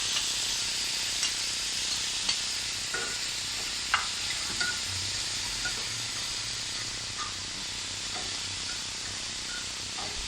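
Marinated chicken pieces sizzling in hot oil on a tawa, with scattered clicks of a spatula stirring them against the pan, the sharpest about four seconds in.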